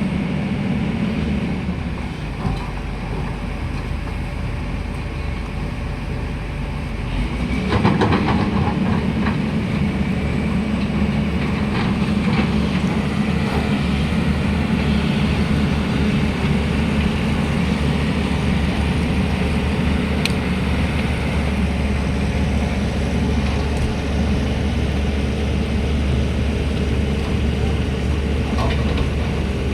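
Excavator's diesel engine running steadily while the machine digs. There is a burst of metallic knocks and scraping about eight seconds in, after which the engine runs louder under load.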